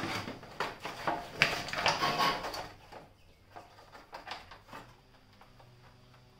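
Plastic rear inner fender scraping, rubbing and knocking against a motorcycle frame as it is worked into a friction fit by hand. The handling is busiest in the first three seconds, with one sharp knock about a second and a half in, and then eases to a few light taps.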